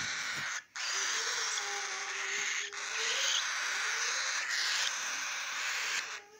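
Cockatiel chicks giving long, raspy hissing calls, broken by a few short pauses.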